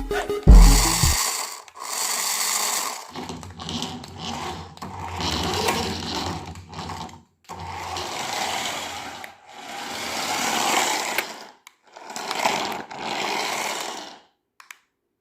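A toy remote-control car's small electric motor whirring in repeated bursts of one to four seconds, starting and stopping as it is driven.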